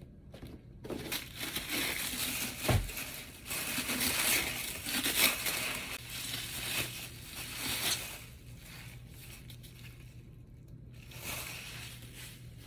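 Bubble wrap being crumpled and pulled off a book, a dense crackling rustle that dies down to light rustling after about eight seconds. A single dull thump comes about three seconds in.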